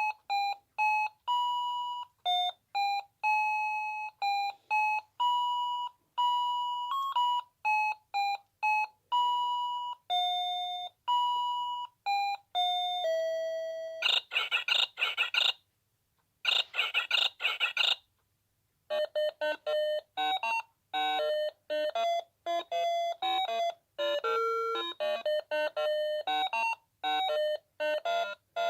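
Noah Precision Fruity Melody electronic alarm clock playing a tune in single pure beeping notes. About 14 seconds in, two short bursts of a rapid warbling alarm tone follow. After a brief pause, a second, fuller melody with several notes sounding together starts.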